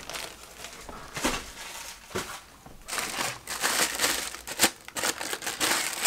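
Clear plastic bag around a car speaker crinkling and rustling as it is handled and pulled out of its packaging, in irregular crackles with a short lull about halfway through.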